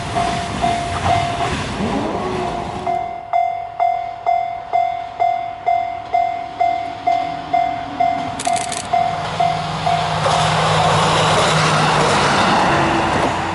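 Japanese railway level-crossing warning bell ringing in a rapid, even ding-ding, about two and a half strokes a second. Train running noise over the rails covers it at the start, and a diesel train's engine and wheel noise builds from about ten seconds in.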